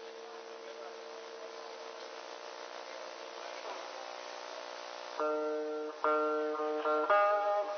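Guitar on a thin, old live tape: a held note over a steady hum, then three loud chords struck about a second apart, each left ringing.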